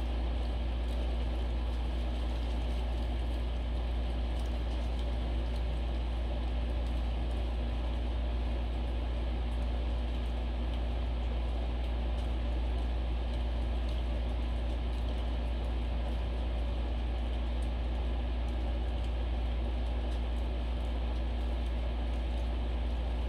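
Steady low mechanical hum with an even background hiss, unchanging throughout.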